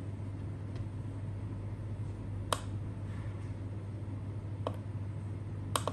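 Single clicks of an electronic device's keys being pressed, a few separate presses a second or two apart, with no beep after them: this model has no speaker installed. A steady low hum runs underneath.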